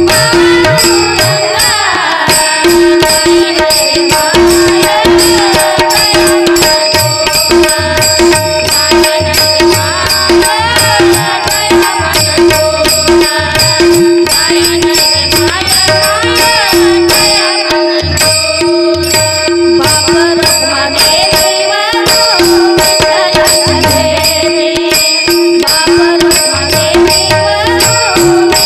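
Devotional bhajan music in raga Bhairavi: a hand drum and cymbals keep a steady beat under a sustained melody.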